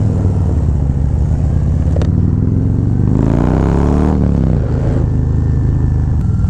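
Harley-Davidson Road Glide V-twin engine heard from the rider's seat while riding: it runs steadily, revs up for about a second and a half from roughly two and a half seconds in, then the revs drop back and it carries on steadily.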